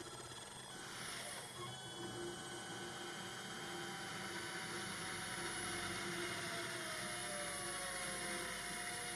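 CNC router lathe add-on taking a finish pass on a cold-rolled steel cone with a brazed carbide tool: a steady motor hum and whir. A few faint whines slowly fall in pitch from about halfway through.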